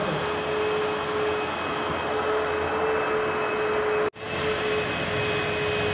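Steady rushing noise with a faint steady hum under it, broken off for an instant about four seconds in.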